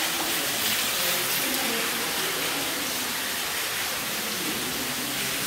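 Underground waterfall in a cave: a steady rush of water falling and splashing onto rock.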